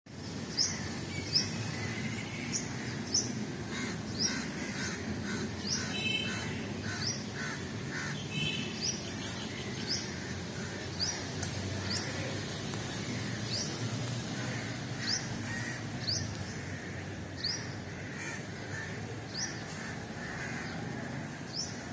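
Birds calling in a garden: one bird repeats a short, high, rising chirp roughly every second, and other birds call now and then, over a steady low background rumble.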